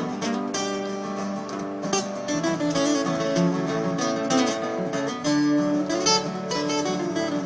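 Acoustic guitar strumming and picking an instrumental break in a country-folk song, with no singing.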